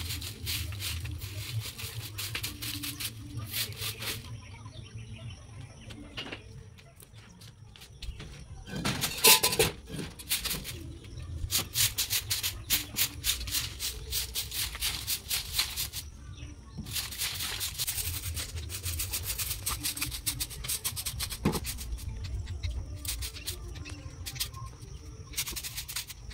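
Soft grass broom sweeping a cement floor: runs of quick swishing strokes, with a brief louder burst about nine seconds in.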